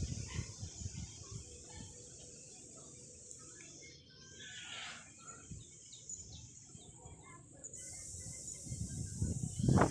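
Faint outdoor background noise picked up during a phone screen recording: a steady high hiss and low rumble with scattered short chirps, and a louder burst near the end.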